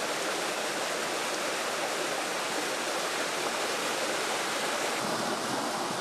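Small mountain-stream waterfall pouring over granite rocks into a pool: a steady, even rush of falling water.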